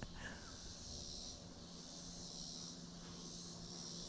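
Insects calling in a faint, steady evening chorus that swells and fades in pulses a little over a second apart, over a faint low hum.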